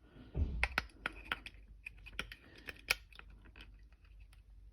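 Irregular small plastic clicks and taps of AA batteries being handled and pushed into a weather radio's battery compartment, with a low thump about half a second in and a sharper click near three seconds.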